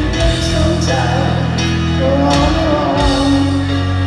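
A rock band playing a slow ballad live in an arena: long held chords with piano, and a singer's voice wavering in vibrato above them about a second in and again near the middle.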